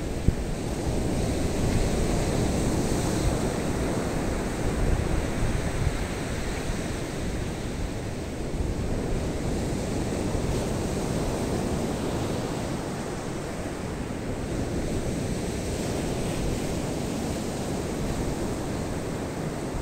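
Rough surf breaking and washing up a sandy beach, with wind buffeting the microphone; the sound swells and eases a little as the waves come in. A single sharp tap sounds just after the start.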